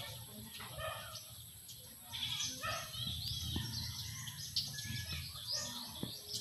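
Farmyard animal sounds: birds chirping repeatedly, with a few calls from a farm animal.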